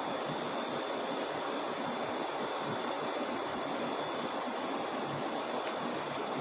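Steady rushing of a river running high after a flood.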